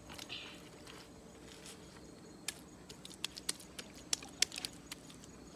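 Wet mud scooped by hand and patted onto a banana-leaf-wrapped parcel, a run of short light pats and slaps starting about halfway through.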